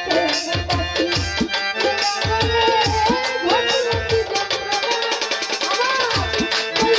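Live baul folk music: a woman singing into a microphone over keyboard and hand drums, the drums keeping a fast, steady beat with low strokes that bend down in pitch.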